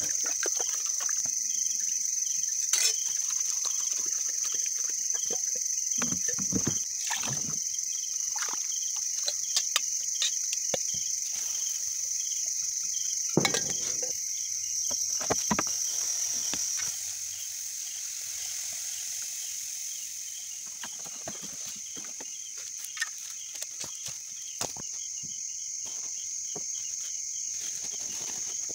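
Steady high-pitched chorus of crickets and other night insects, with a second pulsing trill beneath it. Scattered clicks, knocks and rustles of handling sound close by, the loudest about six, seven and thirteen seconds in.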